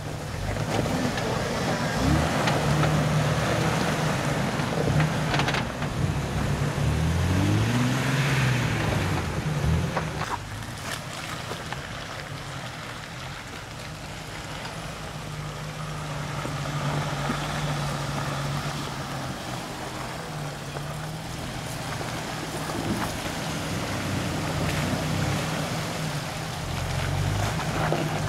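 Jeep engine running at low revs, revving up and falling back once about eight seconds in, with a steady hiss behind it.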